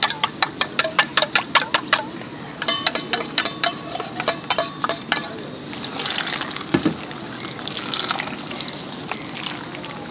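A spoon clinking quickly against a steel bowl, about four or five ringing strikes a second in two runs, as eggs are beaten. After about six seconds the clinking stops and the beaten egg sizzles on the hot griddle beneath the paratha dough while it is spread with the spoon.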